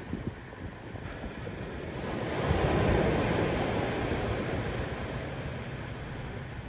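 Ocean surf washing in on the tide pool rocks, a rushing noise that swells about two and a half seconds in and slowly dies away, with wind rumbling on the microphone.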